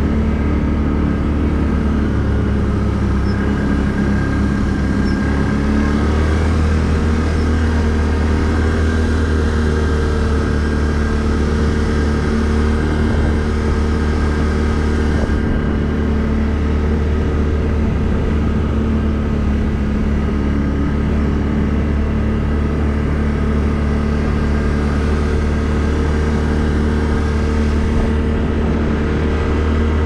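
Can-Am ATV engine running steadily at a low cruising speed, with a slight shift in pitch about six seconds in.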